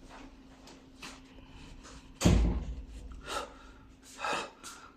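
A door shut with a bang about two seconds in, followed by two short, sharp breaths.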